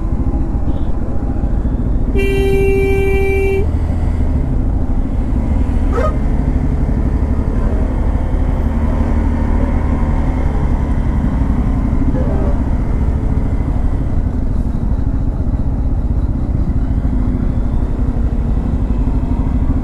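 Bajaj Pulsar N250's single-cylinder engine running at crawling speed in heavy traffic. About two seconds in, a vehicle horn honks once, steady-pitched, for about a second and a half. There is a single sharp click about six seconds in.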